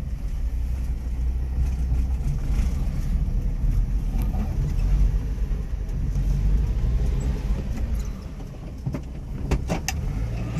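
Subaru Sambar minitruck running as it drives along in four-wheel drive, a steady low rumble that eases off briefly about eight seconds in, with a few sharp clicks near the end.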